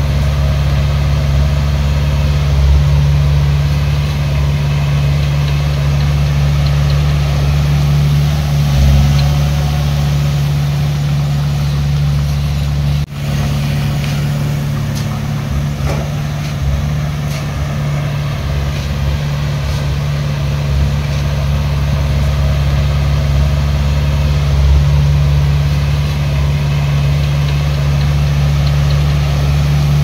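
Heavy diesel engine of construction equipment running steadily with a deep drone, cutting out for an instant about halfway through.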